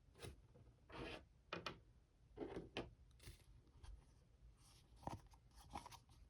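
Faint handling noises of a plastic action figure and its flight stand being fiddled with: short rubs, scrapes and light clicks, scattered and irregular.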